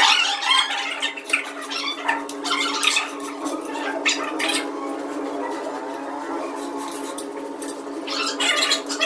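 A ceramic floor tile rubbed and pressed by hand into wet mortar, making short scraping strokes through the first half. About eight seconds in, a tool scrapes the mortar bed. Under it all runs a steady hum of several tones.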